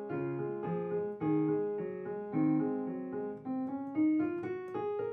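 Background piano music: a melody of sustained notes over changing chords, with no speech.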